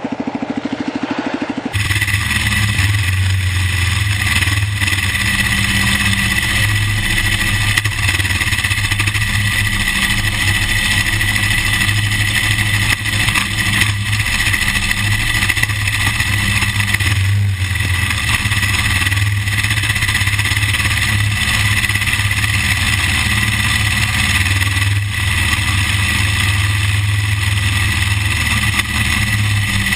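Kawasaki KLR dual-sport motorcycle's single-cylinder engine running steadily under way on a dirt trail, with wind and road noise at the camera mounted low by the front wheel.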